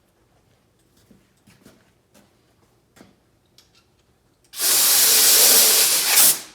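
Compressed-air blow gun blasting for about two seconds: a loud hiss that starts about four and a half seconds in and cuts off sharply, after a few light knocks.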